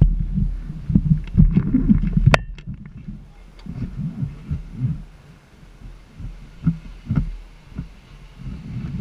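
Handling noise on an action camera's microphone as the camera is tipped and moved: irregular low thuds and rumbles with a few sharp clicks, one of them ringing briefly about two seconds in. No engine is running.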